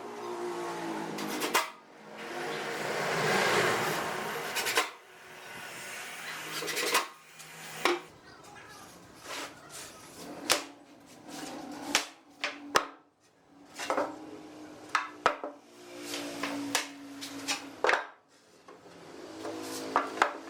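Hand woodworking: a run of sharp knocks and taps on wood, with a longer rasping stretch a few seconds in.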